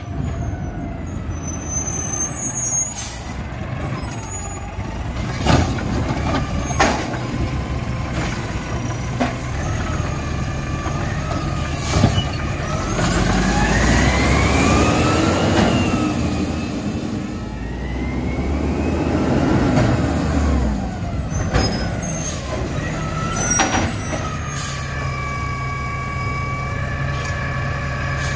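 Natural-gas Mack side-loader garbage truck driving up and stopping: the engine's pitch rises twice as it pulls past, with several short, sharp air-brake sounds, then it settles into a steady whine as the automated arm reaches out toward the carts.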